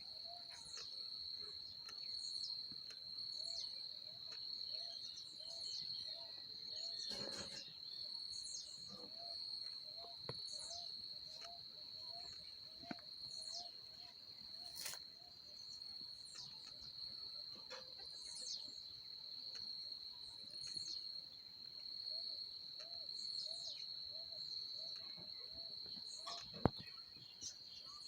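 Countryside ambience: an insect's steady high trill throughout, with birds giving short high calls that drop in pitch, repeated every second or so. A soft low note repeats about twice a second underneath, and there are a couple of sharp clicks.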